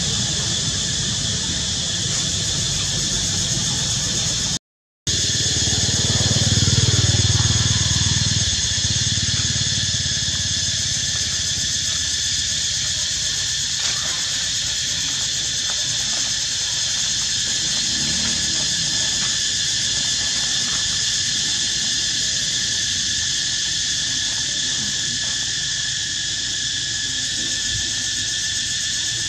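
Steady, high-pitched insect drone holding several fixed pitches, broken by a brief silent dropout about four and a half seconds in. A low rumble swells for a few seconds after the dropout.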